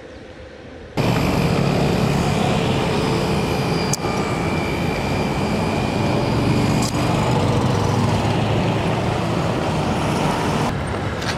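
Loud, steady drone of engines and road traffic, starting abruptly about a second in.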